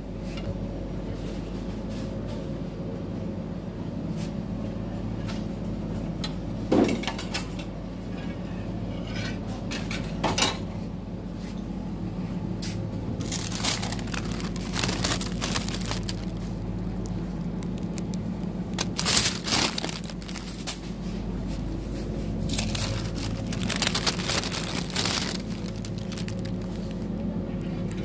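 Supermarket interior ambience: a steady low hum, like store refrigeration or ventilation, with intermittent rustling and clattering handling noises. These include a couple of sharp clicks and several longer stretches of rustling.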